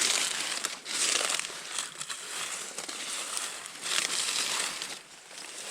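Dry sugarcane leaves crinkling and rustling in several bursts, loudest at the start, about a second in and again about four seconds in.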